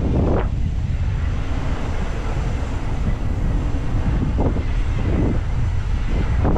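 Wind buffeting the microphone of a rider's action camera, a heavy steady low rumble, mixed with the roll of bike tyres over brick pavers on a steep descent. A few short louder swells come about half a second in and again in the last two seconds.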